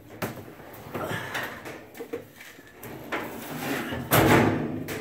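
Washing machine being dragged and shifted out of its spot, scraping and knocking on the floor in uneven bursts, with the loudest scrape and thump about four seconds in.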